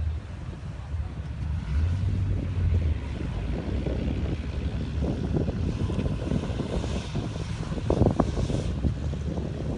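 A 4x4 vehicle's engine running steadily under load in sand, with a low drone throughout. A couple of sharp thumps come about eight seconds in.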